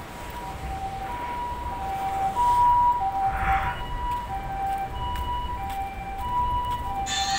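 Japanese ambulance siren, the two-tone "pee-po" call: a high and a low tone alternating about every two-thirds of a second, growing louder. A loud hissing noise comes in near the end.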